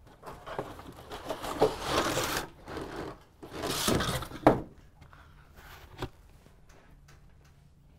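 Cover panel of an LED retrofit kit being handled and slid into a light fixture: two stretches of scraping, then a sharp knock about halfway through and a lighter one a little later.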